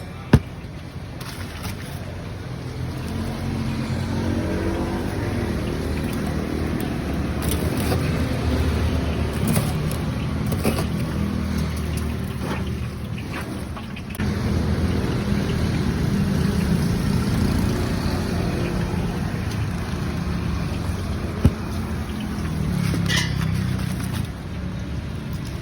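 Street traffic: motor vehicles running and passing by in a steady low rumble that swells and fades, with two sharp clicks.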